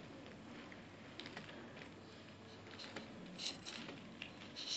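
Faint, short scratching strokes of a drawing tip pressed across carbon paper onto paper underneath, a few separate strokes, each leaving a traced line.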